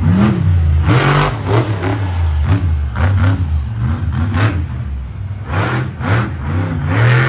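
Monster truck engine revving in a series of short throttle blips, its pitch rising and falling several times while the truck rolls along slowly.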